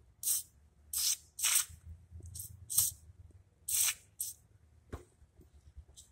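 Short hissing spurts from an aerosol can of PB Blaster penetrating oil, about seven in quick succession, flushing metal chips out of a freshly tapped helicoil thread hole in a motorcycle cylinder head. A single sharp click comes about five seconds in.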